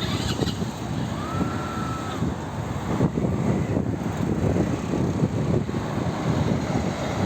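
Outdoor street noise: a steady rumble of traffic with wind buffeting the microphone, and a faint brief high tone about a second in.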